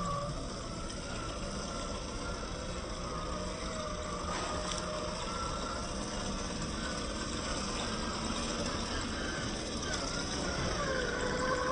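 Traxxas TRX-4 RC crawler's electric motor and gearbox whining, the pitch rising and falling with the throttle, over a steady hiss.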